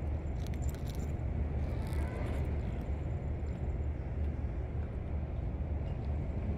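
Steady low outdoor rumble, with a few light metallic jingles of a kitten's collar tag and leash clip in the first second.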